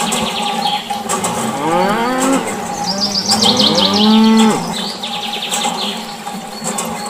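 Cow mooing twice, two long calls that rise and then fall in pitch, the second louder, over high chirping trills.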